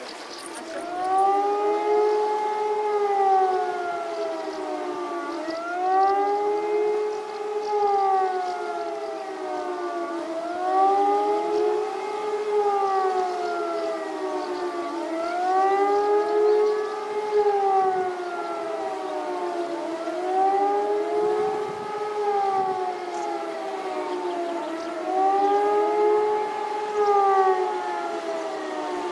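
A warning siren wailing, its pitch rising and falling about every five seconds, with a second overlapping wail slightly out of step.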